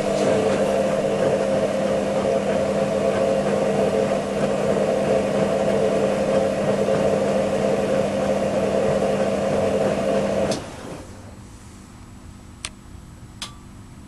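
Front-loading washing machine running with a loud, steady hum and rush that cuts off abruptly about ten and a half seconds in. A faint hum and two short clicks follow near the end.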